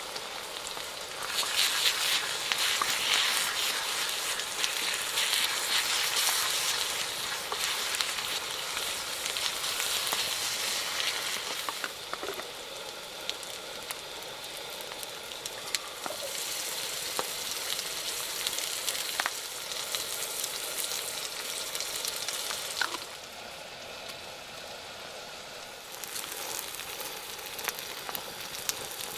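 Food sizzling in a frying pan, loudest over the first ten seconds or so, then softer with a short lull near the end.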